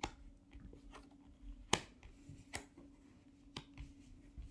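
Tarot cards being flipped over and laid down on a cloth-covered table: four light snaps of card stock, the sharpest a little before halfway.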